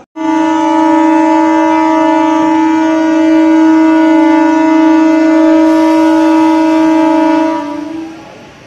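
Electric MEMU train's horn sounding one long steady blast of about seven seconds at close range, starting abruptly and cutting off near the end.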